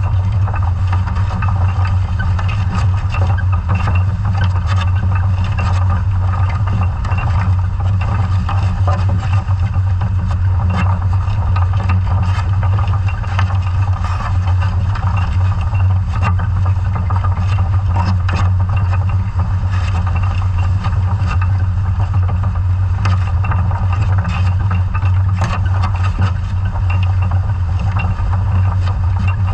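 Underwater sound of a scallop survey dredge under tow over a sandy seafloor: a steady low drone from the towing vessel's engine and propeller, with irregular clicks and rattles from the dredge gear.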